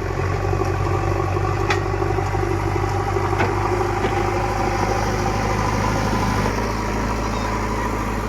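JCB digger's diesel engine running steadily, with two sharp metallic clicks about a second and a half apart early on; the engine note eases slightly about two-thirds of the way through.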